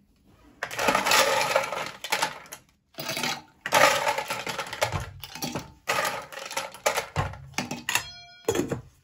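Ice cubes clattering into a cocktail shaker in three rattling bursts, with a short ringing clink near the end.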